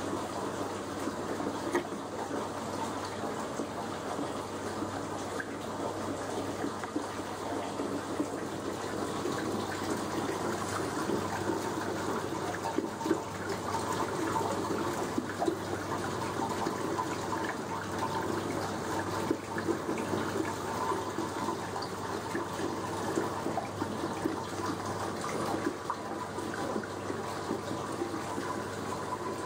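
Steady, even sound of running water.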